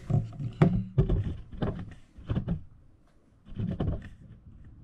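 A string of irregular knocks and thumps, about half a dozen in a few seconds, with quiet gaps between them.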